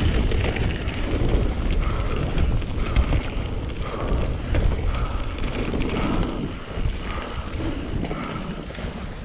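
Mountain bike rolling fast down a rough trail: tyres rumbling over the ground and the bike rattling, with wind blowing on the helmet camera's microphone. A faint squeak repeats about once a second.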